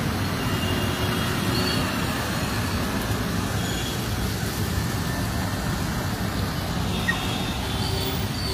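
Steady hiss and rumble of road traffic on a wet street.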